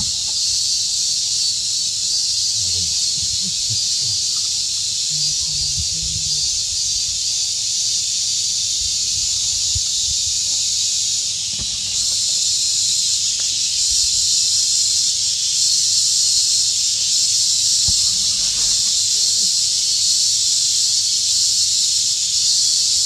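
Steady high-pitched insect chorus, buzzing without a break, which grows a little louder about halfway through.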